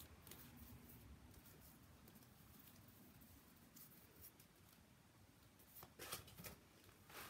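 Near silence: room tone with a few faint soft taps and rustles from cards being handled, slightly stronger about six seconds in.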